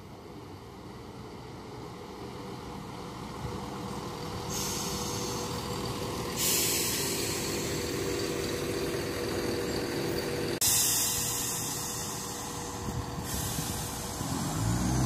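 CrossCountry Class 170 Turbostar diesel multiple unit coming through the station: a rising rumble of wheels on the rails with a strong hiss. Near the end its diesel engine note comes in.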